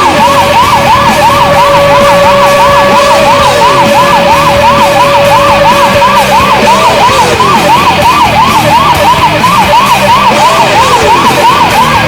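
Pittsburgh Penguins' retro arena goal horn: a loud steady horn tone held throughout, with a siren warbling rapidly over it about three times a second, and a few slow falling pitch sweeps.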